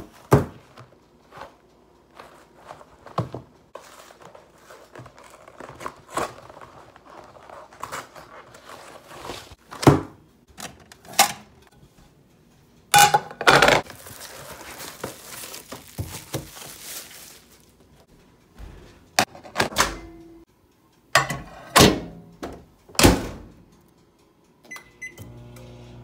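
A cardboard frozen-pizza box is opened and the pizza taken out: repeated knocks and thuds of the box and hands, with a few seconds of rustling wrapping in the middle. Near the end there is a short beep from a microwave oven's keypad, and then the oven starts running with a steady low hum.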